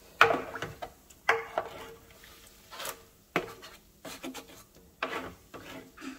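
A stirring utensil knocking and scraping against a metal baking tray and the range hood filter soaking in it: about nine irregular knocks, several leaving a short metallic ring, with rubbing in between.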